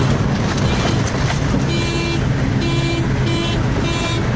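Car driven fast, with engine and road noise steady inside the cabin. From about two seconds in, a run of short pitched beeps repeats about twice a second.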